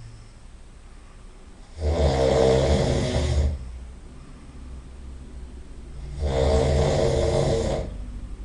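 A person snoring loudly: two long, rattling snores about four seconds apart, each lasting about a second and a half, with quieter breathing between them.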